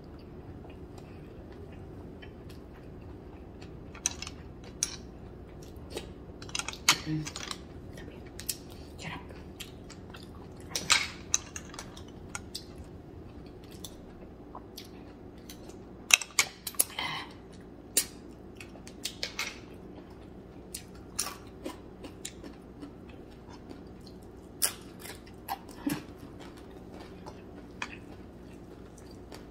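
A person eating: chewing, with scattered sharp clicks and clinks of a spoon against bowls and plates.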